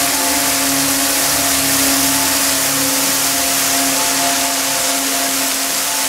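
Waterfall pouring onto rocks and into a pool: a steady, loud rushing and splashing of water, with a soft held drone of music underneath.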